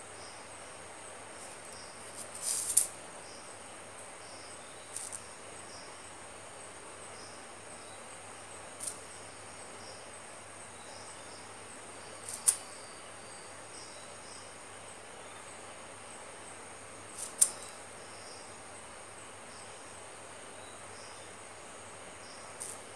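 Steady high-pitched insect chirring, likely crickets, with a faint regular pulsing, broken by a few short, sharp clicks several seconds apart.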